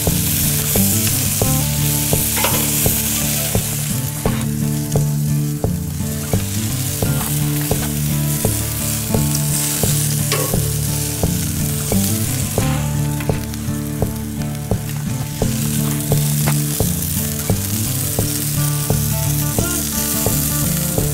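Bacon-wrapped venison burger dogs sizzling and hissing on a hot grill, with fat dripping into the flames and many small pops and crackles.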